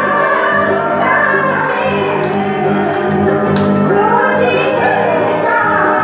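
A woman singing a Karbi song into a microphone over live instrumental accompaniment, amplified through a PA.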